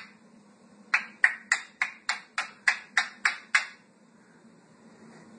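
A rapid, even run of about ten sharp, slightly ringing taps, roughly three a second, starting about a second in.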